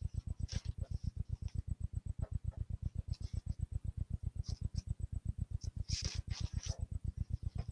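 Soft paper rustling with a few light clicks as Bible pages are turned, over a steady, rapid low pulsing hum.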